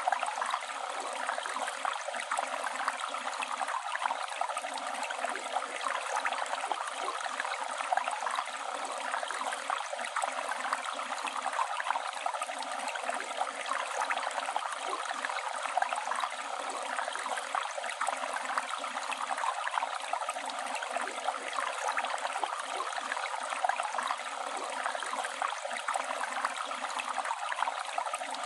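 Flowing river water: a steady rush of moving water.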